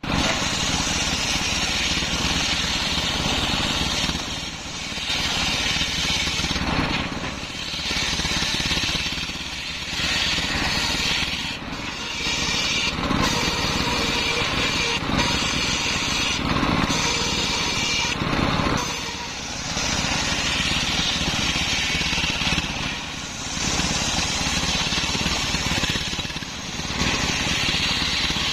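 Large belt-driven table circular saw ripping waru (sea hibiscus) logs into boards, with its stationary engine running throughout. The cutting noise drops briefly every few seconds between passes.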